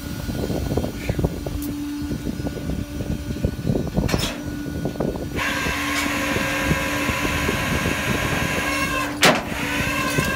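Flatbed tow truck's winch hauling a car up the bed by a chain: a steady low hum, joined about five seconds in by a higher motor whine that keeps running. Two sharp knocks, one before the whine starts and one near the end.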